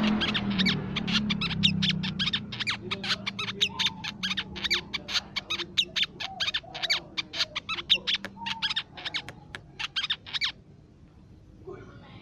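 Crimson sunbird calling: a fast, even run of sharp, high chips, about five a second, that breaks off about ten seconds in.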